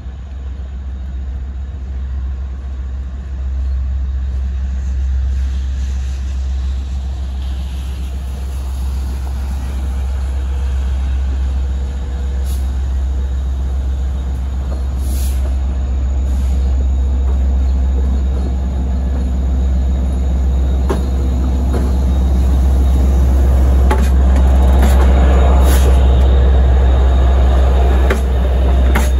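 Two DM30AC locomotives pulling a train, approaching and going past close by. The low rumble builds as they near and is loudest as they pass near the end, with a few sharp clicks along the way.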